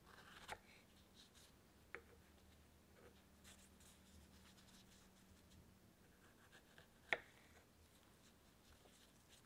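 Faint knife work on a wooden cutting board: a paring knife cutting the tops off strawberries, with a few sharp light taps of the blade on the board, the loudest about seven seconds in, and soft rustles of gloved hands.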